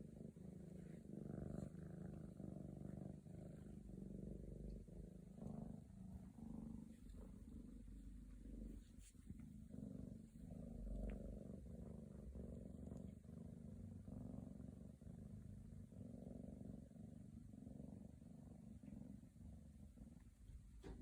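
Scottish Fold kitten purring steadily, the rumble pulsing with each breath in and out.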